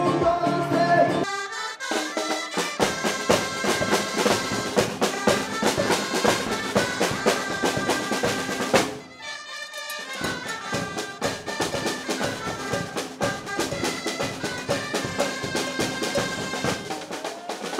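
Lively music with reedy wind or brass instruments over a steady drum beat, with a brief break about nine seconds in.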